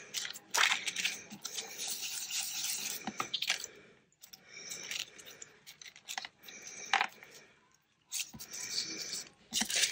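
Irregular scratchy rubbing and rustling of paper and a plastic stencil being handled and pressed with the fingers on a craft mat, with a few sharp clicks and two short pauses.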